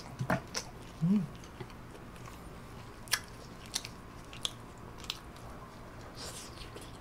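Close mouth sounds of a person chewing roast lamb: wet smacks and short sharp clicks every second or so, with a brief hummed "mm" about a second in.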